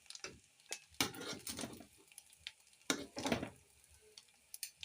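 Eating sounds from a plate of fried rice: irregular clicks and short scraping noises, clustered about one second and three seconds in.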